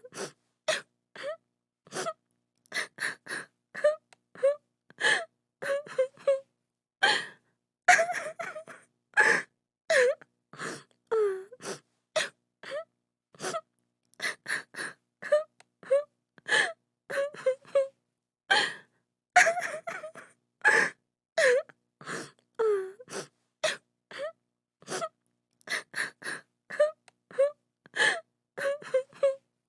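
A woman crying: short broken sobs and gasping breaths, some sliding down in pitch like a wail, with brief silent gaps between them.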